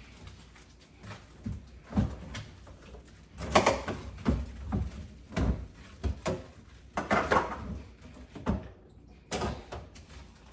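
Irregular knocks, bumps and scraping as a basin and sink are washed out, with two longer noisy scrubbing bursts, one about three and a half seconds in and one about seven seconds in.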